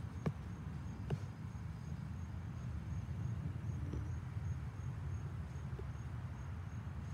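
Outdoor ambience: a steady low rumble with a faint, high-pitched chirp repeating about twice a second, and a couple of soft knocks in the first second or so.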